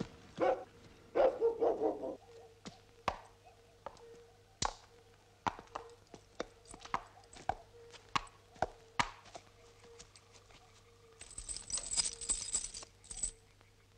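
A dog barks a few times, then scattered sharp knocks and clicks follow at irregular intervals. A short burst of hissing rustle comes near the end.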